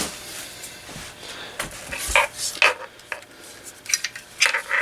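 Objects being handled on a workbench: scattered light clicks and knocks with some rubbing and rustling, a cluster of quick clicks near the end.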